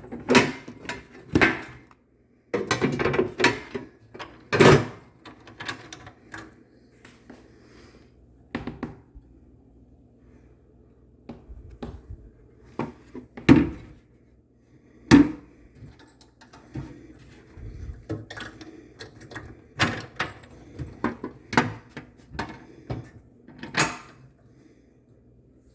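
Drawers and parts of a vintage seven-drawer machinist's tool chest being handled: irregular clicks, knocks and clunks, a few much louder than the rest, over a faint low hum.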